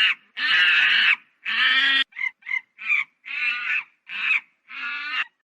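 A monkey calling in a run of about eight pitched, reedy calls separated by short silences. Two calls of about half a second to a second come first, then three quick short ones, then three more of about half a second.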